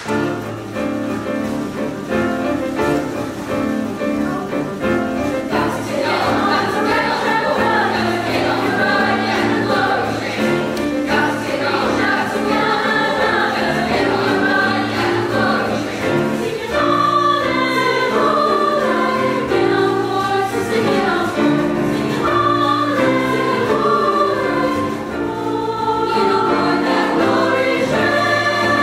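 Treble choir of young girls' voices singing in parts with piano accompaniment, the singing growing fuller about halfway through.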